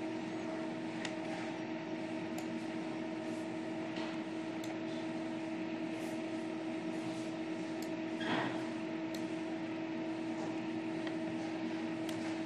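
Steady hum over a faint hiss, the even drone of a fan, appliance or electrical hum, with a brief soft noise about eight seconds in.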